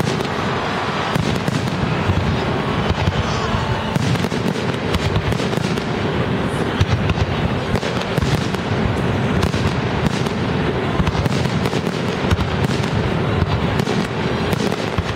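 A professional fireworks display going off in quick succession: a dense, continuous run of bursts and crackle with no pause.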